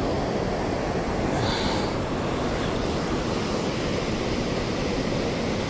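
Steady rushing noise of strong river current, with wind on the microphone.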